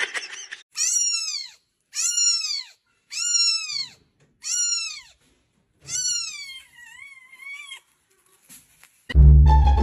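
Newborn kitten mewing: five thin, high mews about a second apart, each rising and then falling in pitch, the last one longer and wavering. Music comes in loudly near the end.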